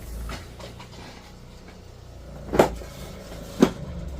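Two sharp knocks about a second apart, over a low steady hum.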